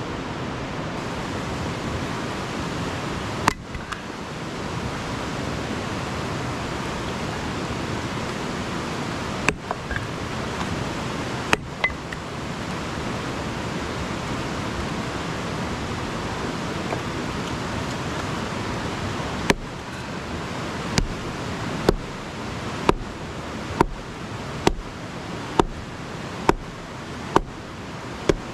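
A river rushes steadily. About two thirds of the way in, a series of sharp knocks begins, about one a second, and runs on to the end, with a few single knocks earlier.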